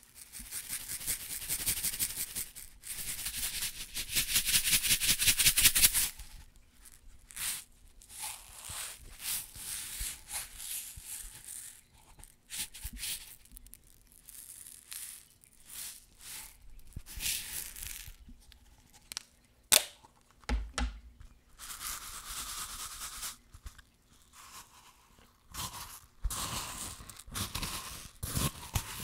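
Small plastic containers handled close to a microphone for ASMR: fingers tap and scratch rapidly over the plastic for the first six seconds, then intermittent rubbing and tapping follow, with a sharp click about twenty seconds in. Near the end comes a rough crinkling as a plastic cup is worked against the mic.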